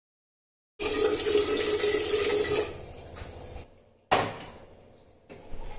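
Water from a purifier tap running into a stainless steel pot, stopping and dying away after about two seconds. About four seconds in, a sharp metallic clank rings out as the pot is set down on the gas stove's burner grate.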